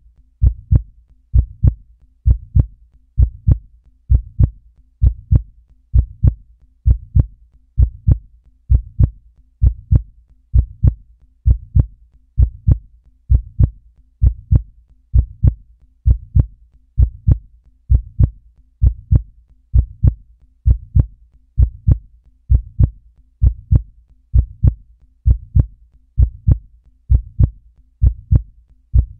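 Heartbeat sound effect: a slow, steady beat of deep thumps about once a second.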